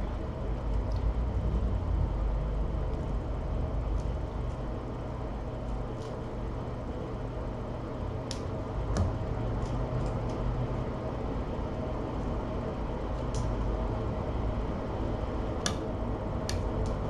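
Steady low room hum, with a few faint, short clicks scattered through it.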